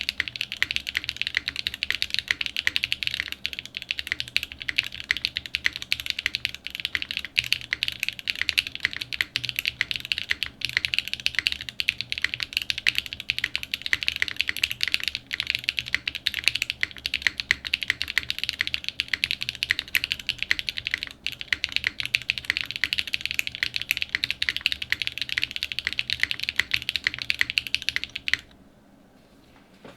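Fast, continuous typing on a Cloudline mechanical keyboard: top-mounted polypropylene plate, factory-lubed SWK Yang switches and JTK Ride keycaps, a dense run of clacking keystrokes. The typing stops about a second and a half before the end.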